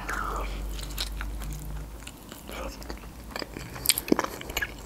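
A bite into a pan-fried khinkali dumpling followed by chewing: many small wet clicks, with a couple of louder crunches about four seconds in.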